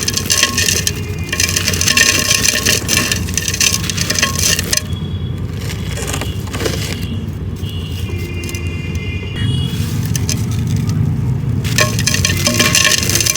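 Dried clay being crumbled and crushed by hand, a dense crackling and crunching with gritty scraping. It eases off from about five seconds in and comes back loud near the end.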